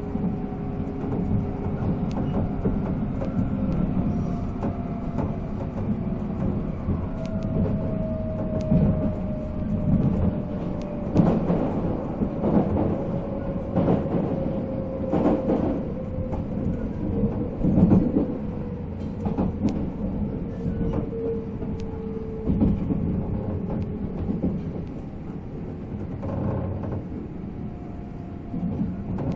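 Onboard running sound of a JR 485-series electric train: the MT54 traction motors and gears whine over a steady rumble of wheels on rail, with sharp knocks from rail joints. The whine falls slowly in pitch as the train slows.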